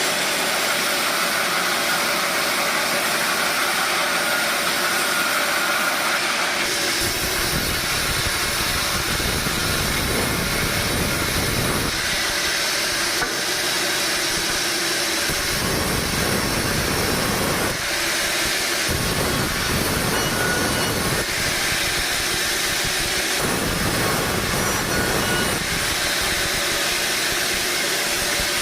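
A sawmill saw runs steadily with a constant hiss and whine. Four times, for a few seconds each, it takes on a heavier, deeper sound as the blade cuts through a log.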